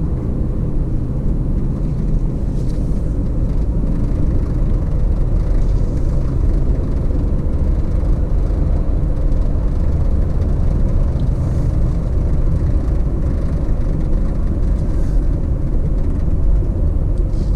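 Steady rumble of a moving road vehicle: engine, tyre and wind noise while cruising at an even speed.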